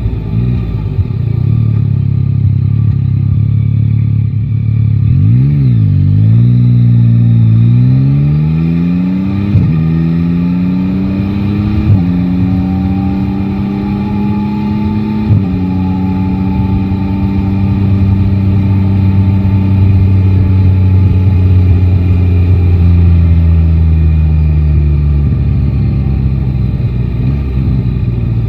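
Yamaha Tracer 9 GT's three-cylinder engine pulling away and accelerating through the gears. There is a short rise and fall in pitch about five seconds in, then the pitch climbs and drops back at four upshifts. It holds steady at cruising speed, and the pitch falls as the throttle is closed near the end.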